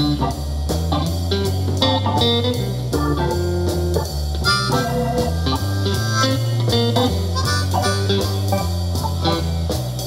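Blues music played through a JBL Flip 4 portable Bluetooth speaker and picked up by a microphone in the room, with prominent low bass notes.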